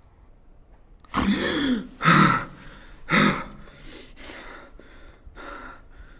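A man gasping and breathing hard: three loud gasping breaths, the first with a voiced catch, then quieter panting breaths about every half second.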